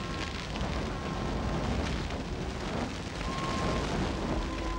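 Grass fire burning through dry veld grass: a steady, dense crackling rush.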